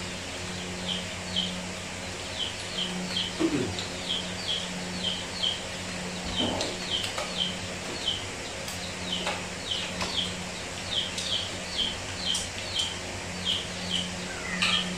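Small birds chirping over and over, short downward-sliding chirps about two or three a second, over a low hum.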